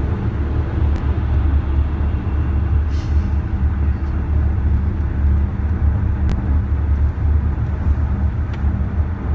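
Steady low rumble of a moving car heard from inside the cabin: road and wind noise, with a few faint ticks.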